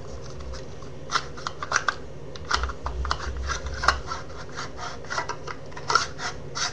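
Irregular light clicks, taps and scrapes of a battery-operated pencil sharpener's plastic parts being handled and pushed together while a part is worked into place.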